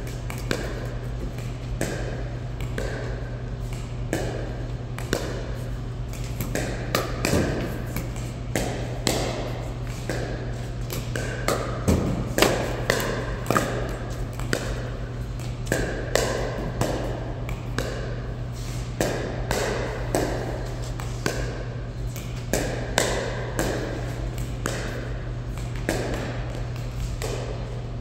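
Pickleball paddles striking a hollow plastic pickleball in a warm-up rally: a string of sharp, ringing pops, irregular and often overlapping, about one to two a second. A steady low hum runs underneath.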